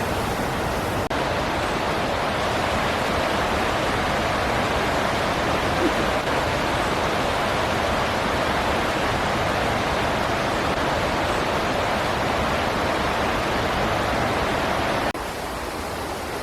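Waterfall rushing, a steady hiss of falling water; the level drops a little near the end.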